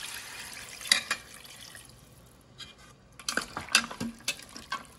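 Water poured from a bowl into a stainless-steel Instant Pot inner pot over pasta and masala, splashing for about two seconds and then tailing off. It is followed by a few sharp clinks of a metal ladle against the pot as the contents are stirred.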